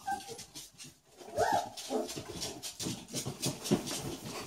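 Catahoula puppies at play: a brief whimper at the start and a louder, rising whine about a second and a half in, amid quick taps and scrabbling of paws and claws on the hard floor.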